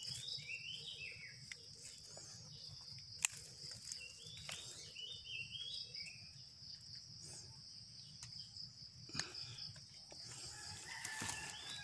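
A bird calls in two runs of short falling notes, near the start and again about four seconds in, over a steady high-pitched drone of insects. A few sharp snaps and rustles of twigs and leaf litter being handled while picking wild mushrooms, the loudest about three seconds in.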